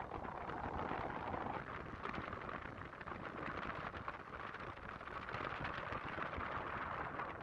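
Wind rushing and buffeting over the microphone, a steady choppy rush.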